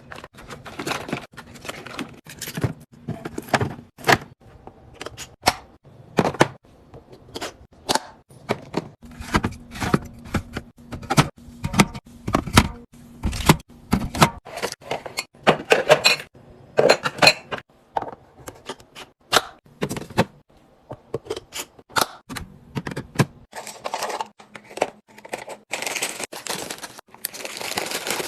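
Food packages and containers being handled and set down while restocking a fridge: a steady run of irregular clicks, taps and knocks, with plastic packaging crinkling near the end.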